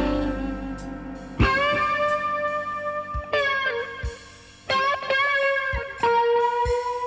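Background music: an electric guitar playing long held notes in a bluesy style.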